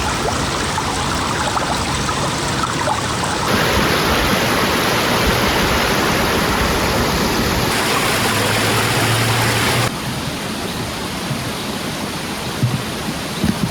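Stream water rushing and splashing steadily, with the sound jumping abruptly in loudness a few times, louder from a few seconds in and dropping back near the end.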